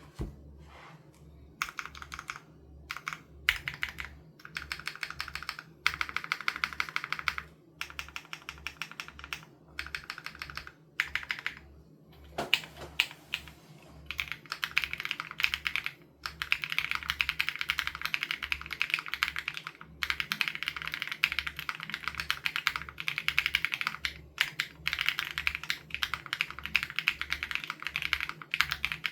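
Typing on an SPM AL87B custom mechanical keyboard with BSUN Raw switches: quick runs of key clacks broken by short pauses, then near-continuous typing from about halfway on.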